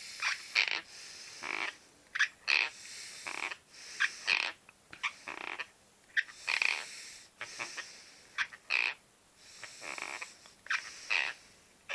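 A sleeping man grinding his teeth: short, grating bursts in irregular clusters, separated by brief pauses.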